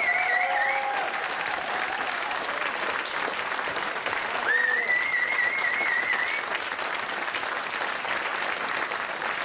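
Studio audience applauding at the end of a jazz number, with a warbling high whistle heard twice, once at the start and once about halfway through.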